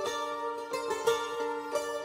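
Instrumental music: a melody on a plucked string instrument over held notes, no singing.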